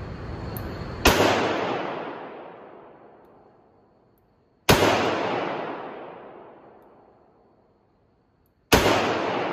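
Three shots from a Smith & Wesson Model 10 .38 Special revolver, spaced about three to four seconds apart. Each sharp report is followed by a long echo dying away in the indoor range.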